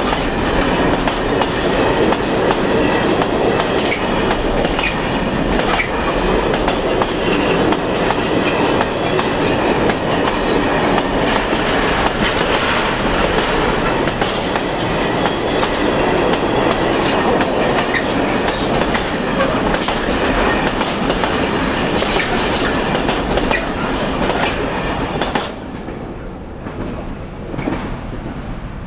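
Container wagons of a freight train rolling past, their wheels clattering steadily over the rail joints. About 25 seconds in the last wagon goes by and the sound drops to a fainter rumble of the receding train.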